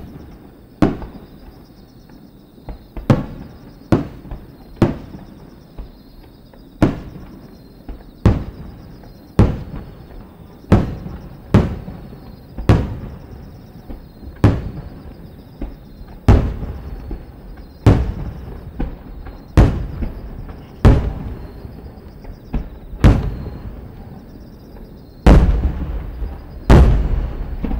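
Aerial firework shells bursting one after another, about one boom a second, each trailing off in a rumbling echo. The two heaviest booms come near the end.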